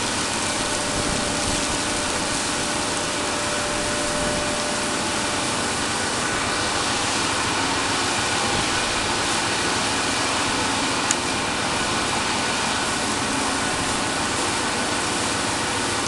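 Steady drone and hiss of oil platform machinery running, with a few faint steady tones in it. A single sharp click comes about eleven seconds in.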